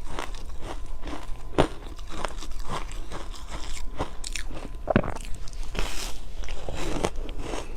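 Close-up ice eating: a person biting and chewing hard ice, with repeated sharp crunches at an irregular pace, the loudest about five seconds in.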